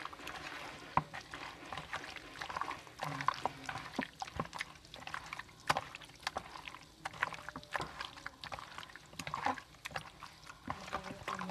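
Irregular wet squelching and sticky clicks of a bare hand kneading raw chicken wings into a thick marinade of yogurt, egg, cornflour and green masala paste.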